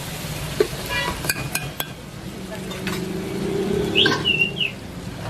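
A metal ladle stirs beef and shredded carrots in a large aluminium pot, clinking and scraping against the pot several times in the first two seconds. A bird chirps once about four seconds in.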